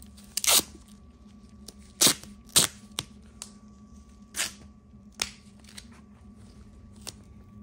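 Thin plastic bag crackling and snapping as it is pulled apart and pressed into place by hand: about eight short, sharp crackles spread irregularly, with quiet between them.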